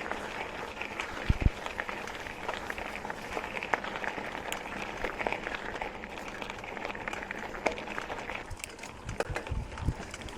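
Mountain bike rolling along a dirt trail: steady tyre and trail noise with many small clicks and rattles, and a few low thumps about a second and a half in and again near the end.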